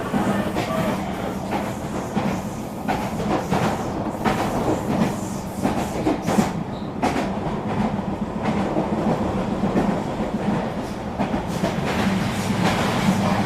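Eurobahn regional train running along the line: steady rolling rumble with a low hum, and irregular clicks of the wheels over rail joints.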